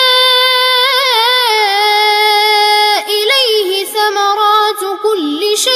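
A boy's voice chanting Quranic recitation in melodic tajwid style, drawing out long held notes with ornamental wavering of pitch. The voice breaks briefly about three seconds in before carrying on.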